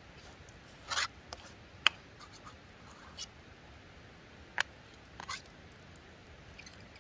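A utensil scraping and clicking against camp cookware: a short scrape about a second in, then a few scattered sharp clicks, the loudest just before the two-second mark and another near the middle.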